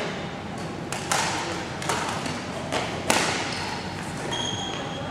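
Badminton rackets striking shuttlecocks: about four sharp smacks echoing in a large sports hall, with short high squeaks of shoes on the court floor near the end.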